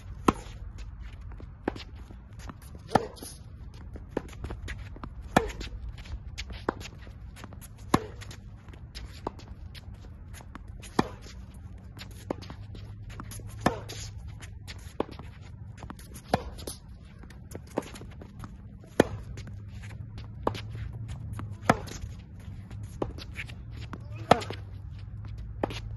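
Hard-court tennis rally: sharp racket-on-ball hits, the loudest about every two and a half seconds, with fainter hits and ball bounces between them, over a low steady rumble.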